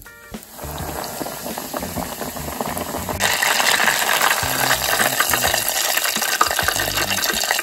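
Breaded sweet-potato cheese pork cutlet deep-frying in hot oil in a deep fryer's wire basket: a steady crackling sizzle that starts about half a second in and becomes louder and brighter about three seconds in.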